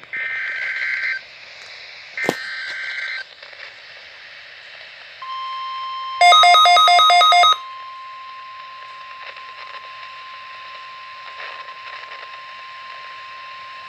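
NOAA Weather Radio required weekly test signal: two short bursts of warbling SAME digital header tones with a click between them. Then, about five seconds in, the long steady weather alert tone begins. For about a second it is overlaid with loud rapid beeping at roughly five beeps a second.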